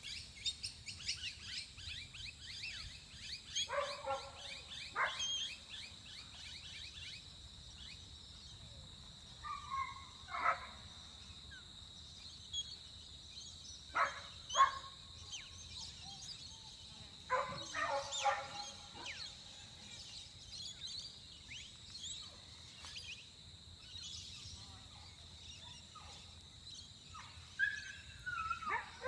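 A dog barking in short distant bursts every few seconds, over birds chirping and a steady high-pitched tone.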